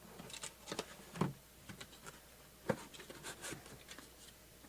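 Hands handling boxes and packaging: scattered light taps and rustles, with two sharper knocks about a second in and a little past halfway.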